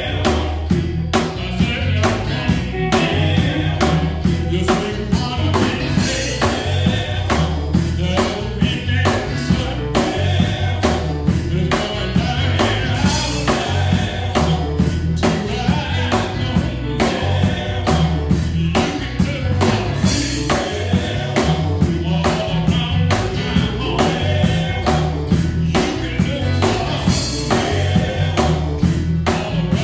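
Male gospel vocal group singing live in harmony, backed by a drum kit keeping a steady beat.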